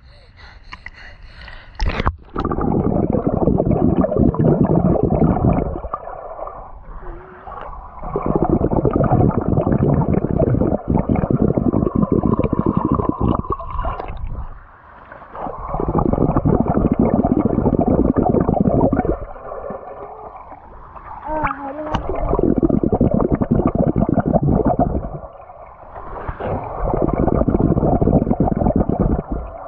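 Underwater rushing and bubbling in a swimming pool, heard through a submerged GoPro's microphone: muffled, coming in surges several seconds long with short quieter gaps between them.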